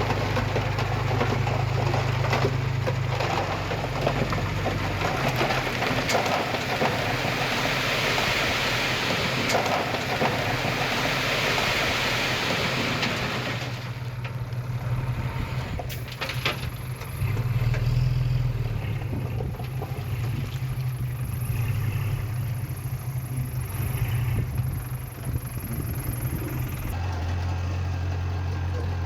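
Diesel engines of heavy earthmoving machinery running, the low engine note shifting pitch several times. A rougher, noisier stretch in the first half quiets about halfway through.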